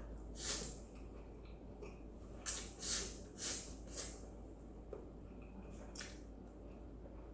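A person eating stir-fried ramyeon noodles: several short wet slurps and chews, a cluster of them in the middle and one more near the end.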